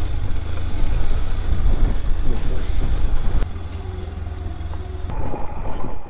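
Motorcycle riding downhill on a rough, rocky track, with heavy wind rumble on the microphone. It gets quieter a little past halfway and changes abruptly near the end.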